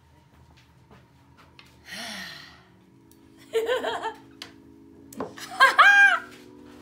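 A woman laughing and squealing with delight, ending in a loud, high-pitched shriek near the end, after a breathy gasp about two seconds in. Sustained background music comes in about halfway.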